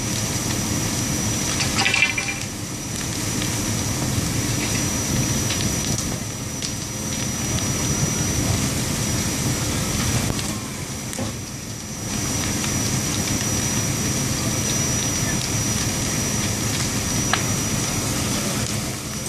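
A burning house and a fire hose stream spraying water onto it: a steady rushing noise with a low hum underneath and a few sharp cracks, the loudest about two seconds in.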